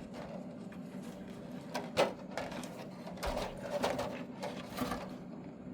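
Light handling of plastic wiring-harness connectors and wires inside the welder's case: scattered small clicks and rustles, the sharpest about two seconds in.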